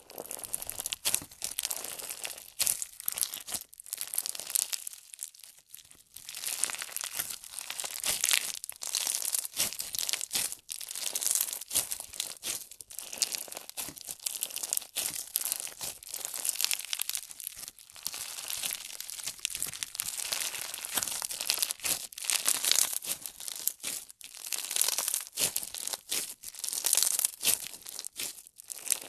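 Orange slime packed with small clear beads being squeezed, stretched and pulled apart by hand, giving a dense, irregular crunching and crackling.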